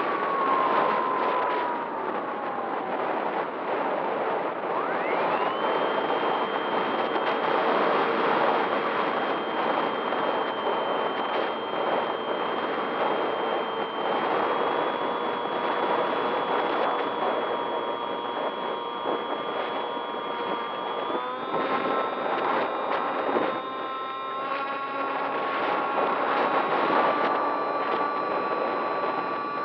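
Onboard sound of a radio-controlled model aircraft in flight: the motor's whine holds steady notes that slide down in the first few seconds, jump up sharply about five seconds in and step up again later with the throttle, over a rush of air across the microphone.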